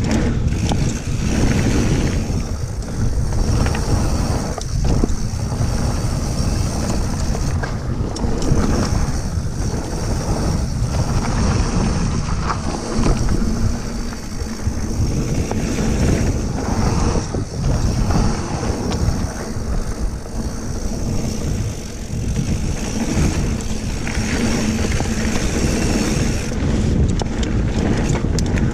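Mountain bike descending at speed: a steady rush of wind over the camera microphone, with the tyres rolling over loose gravel. Frequent short knocks and rattles come from the bike over bumps.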